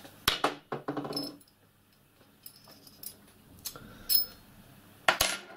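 Small steel parts clinking and knocking as painted steel suspension arms, caphead screws and a socket tool are handled and fitted together on a wooden workbench. A quick cluster of sharp clicks comes in the first second or so, then scattered light clinks, one ringing briefly, and a sharper knock near the end.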